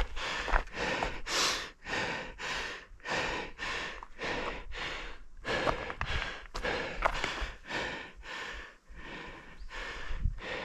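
A runner's heavy breathing, close to a head-mounted microphone: hard, noisy breaths about twice a second.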